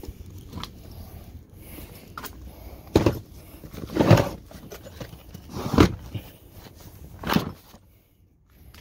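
Four heavy thuds and knocks, a second or two apart, as hard plastic Milwaukee Packout tool cases are handled and set into place.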